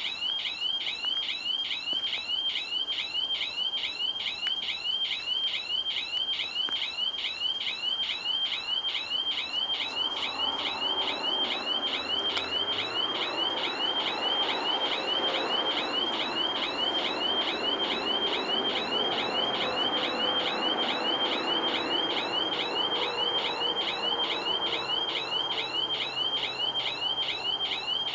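Level-crossing warning bells start up abruptly and ring on in a fast, even, chirping rhythm. From about ten seconds in, a low rumble swells beneath them.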